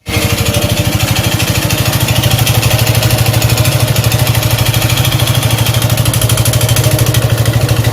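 Suzuki Gixxer 155's single-cylinder engine idling with a steady, even beat and a mechanical noise from the top end, which the mechanic traces to a damaged cylinder.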